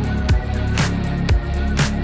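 Background music: an instrumental stretch of a hip-hop-style track, with a kick drum and snare hitting about twice a second over a sustained bass line.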